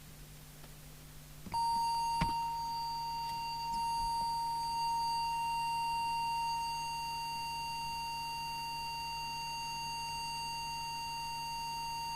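Audio oscillator producing a steady, single-pitched test tone that switches on about a second and a half in, with a click shortly after. The tone is the test signal used to set the CB radio's transmit deviation.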